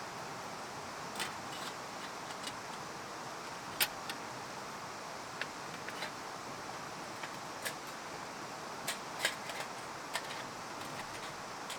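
Wood fire burning in a fire pit: a steady hiss with irregular sharp crackling pops, about a dozen of them, the loudest about four seconds in.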